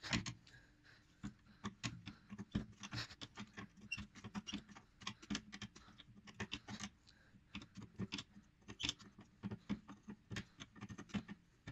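Light, irregular clicks and small scrapes of an 11 mm spanner being worked on the brake pipe union nut at a drum brake wheel cylinder as the nut is unscrewed.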